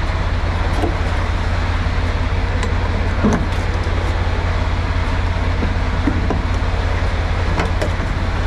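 Semi truck's diesel engine idling steadily, with a few light metallic clinks as the trailer air-line gladhands are handled and coupled.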